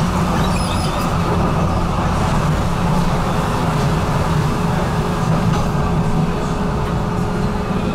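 An HTM GTL8 articulated tram running along its track, heard from on board: a steady, even rumble of wheels on the rails. A steady hum becomes audible about halfway through.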